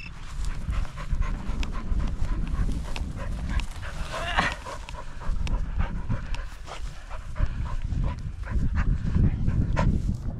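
A dog panting hard close to the microphone, over a low rumble.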